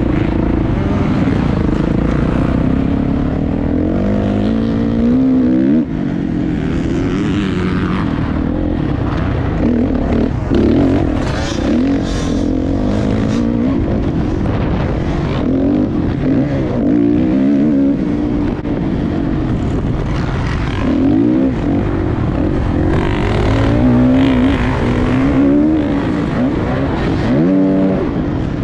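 Motocross dirt bike engine heard from onboard, revving up and dropping back again and again as the rider accelerates and shifts around the track, with bursts of rushing noise.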